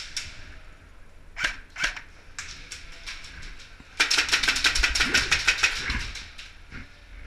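Airsoft guns firing: two single sharp shots about a second and a half in, then a rapid full-auto burst of about two seconds, a fast even run of clicking shots.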